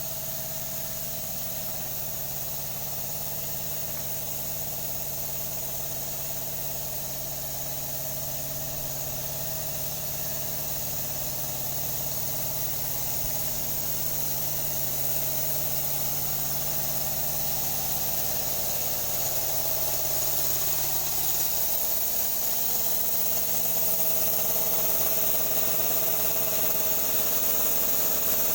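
An engine running steadily at idle, with a steady high-pitched whine over it, growing slightly louder over the last third.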